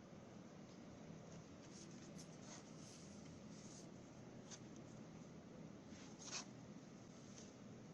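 Near silence: faint room tone with scattered light scratches and small clicks, one a little louder about six and a half seconds in.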